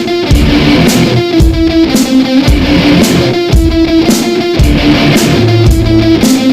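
Background music: a guitar-driven rock track with electric guitar, bass and drums keeping a steady beat.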